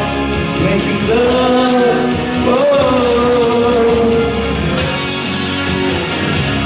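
A man singing into a microphone over backing music, holding long, wavering notes, then falling silent about five seconds in while the music plays on.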